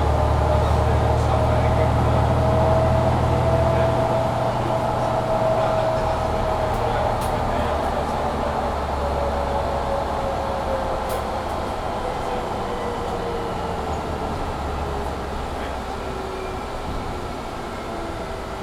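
Cabin sound of a Mercedes-Benz Citaro C2 G articulated bus driving: a deep engine drone with a driveline whine that rises slightly for the first few seconds, then slowly falls. The engine note drops back about four seconds in and the whole sound eases off as the bus loses speed, over the steady noise of a loud heater.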